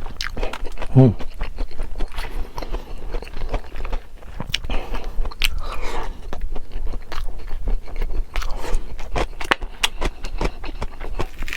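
Close-miked eating sounds: chewy flat glass noodles in spicy Buldak sauce being slurped and chewed, with many small wet clicks and smacks. A short hum of voice comes about a second in.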